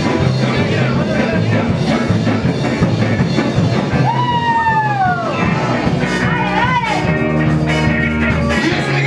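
Rock music with guitar and drum kit playing loudly and steadily, with a long note that bends down in pitch about four seconds in.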